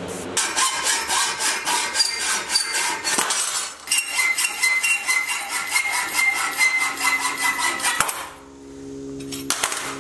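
Hacksaw cutting a steel rod held in a bench vise: rapid, even back-and-forth strokes with a metallic ringing from the rod. The sawing stops about eight seconds in, followed by a couple of sharp clinks.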